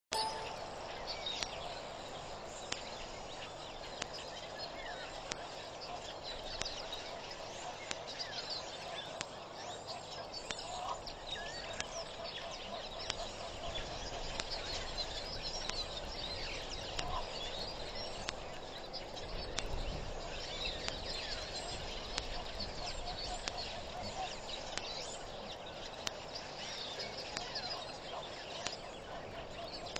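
A chorus of many wild birds calling at once, a dense, continuous chatter of short calls and chirps. A low rumble comes in around the middle.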